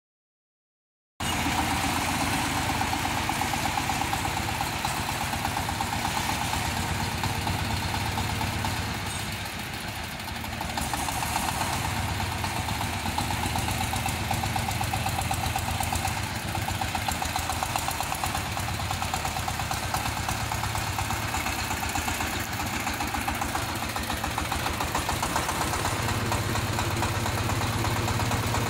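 Single-cylinder diesel engine of a compact 4WD rotary tiller tractor running steadily with a rapid, even pulse. It cuts in suddenly about a second in and dips slightly in level around ten seconds in.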